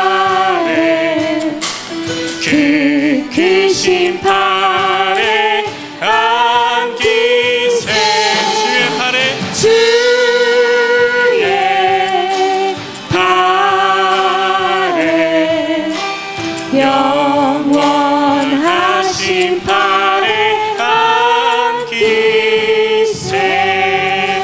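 Church praise team singing a hymn into microphones, female voices leading, with acoustic guitar accompaniment; long held notes with vibrato, phrase after phrase.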